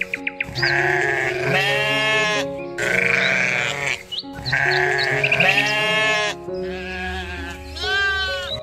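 Background music with a steady tune, over which an animal gives a wavering cry three times, each call lasting under a second, with a few short high chirps between them.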